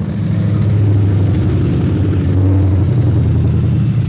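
Ford SVT Cobra Mustang's V8 engine and exhaust rumbling steadily at low revs as the car creeps along at walking pace.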